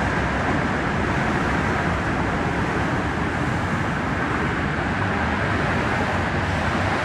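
Steady noise of road traffic passing on a busy road.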